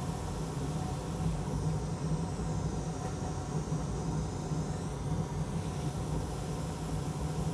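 Hot air rework station blowing steadily, an even rush of air with a low hum, as its nozzle heats a small surface-mount part to desolder it. A faint high whine dips in pitch and comes back up between about two and five seconds in.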